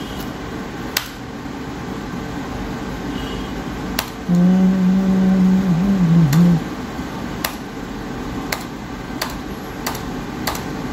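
Scattered sharp single clicks, typical of a computer mouse being clicked while looking through a schematic, over a steady fan-like hum. About four seconds in, a person hums a low "hmm" for about two seconds, wavering at the end.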